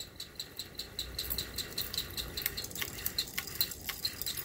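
Canarm Twister ceiling fan coasting down after being switched off, with a low rumble and a quick, regular ticking. The owner takes the ticking for the pull chains, which have ended up on the fan, catching as it turns.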